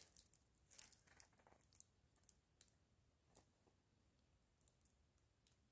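Near silence with a few faint scattered ticks from the plastic film of a diamond painting canvas being handled, most in the first few seconds and one more near the end.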